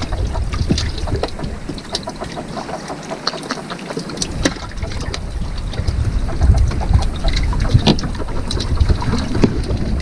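Wind buffeting the microphone on a small wooden boat at sea, with water moving against the hull and scattered small clicks and knocks. The wind rumble drops out briefly a few seconds in, then returns.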